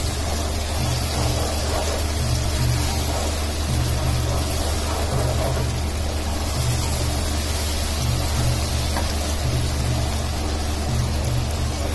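Onion-tomato masala hissing steadily in a hot pan as it is stirred, over a constant low hum.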